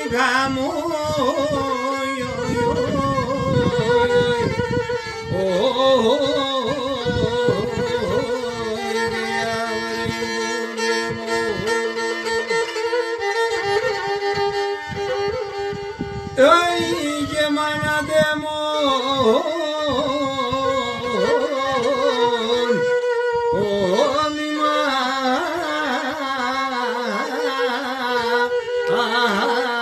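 Traditional folk music: a bowed string instrument plays a wavering melody over a held drone, with struck beats underneath except for a thinner stretch about halfway through.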